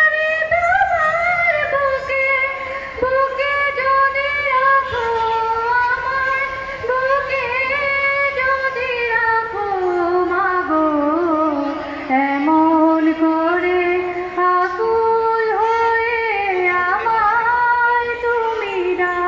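A girl singing solo into a handheld microphone, unaccompanied, in long held notes that waver and glide between pitches.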